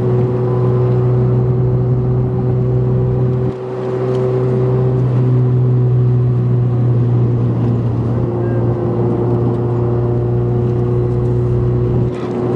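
Modified 2008 Honda Civic Si's four-cylinder engine and catless-header exhaust droning at a steady pitch while cruising, heard from inside the car. The drone briefly drops about three and a half seconds in and again near the end.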